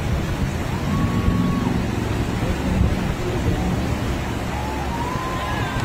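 Rushing whitewater of a river rapid with wind buffeting the microphone, a steady low rumble. A faint, brief high tone sounds about a second in.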